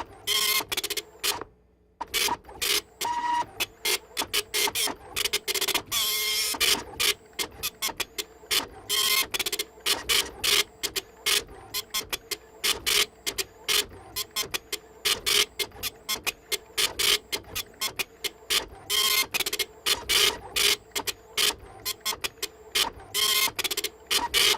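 Printer printing: rapid, uneven bursts of mechanical buzzing and clicking over a steady hum, with a short pause about one and a half seconds in.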